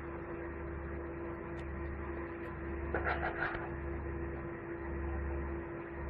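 Kitchen knife cutting a peeled orange into segments on a plastic cutting board: a short cluster of clicks and taps of the blade on the board about three seconds in, over a steady low hum.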